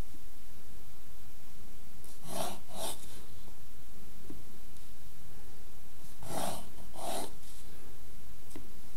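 Pencil drawing lines on paper against a set square: two pairs of short scratchy strokes, over a steady low hum.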